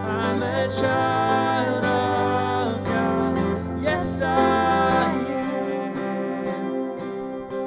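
Live worship song: a woman singing lead over a strummed acoustic guitar and a keyboard. The singing stops a little past halfway, leaving guitar and keyboard.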